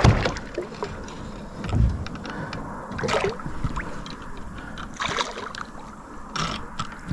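A hooked bass splashing at the surface beside a plastic kayak as it is reeled in: a few short splashes a second or two apart. There is a low thump about two seconds in.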